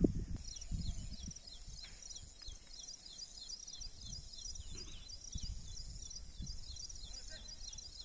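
A bird calling with a quick series of short, high, downward-sliding notes, about three a second, over an uneven low rumble.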